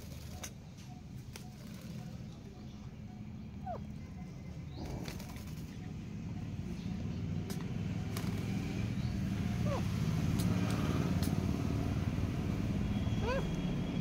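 Alexandrine parakeets shifting about in a wire cage, with scattered clicks and a few short, faint chirps, over a low rumble of traffic that grows louder toward the end.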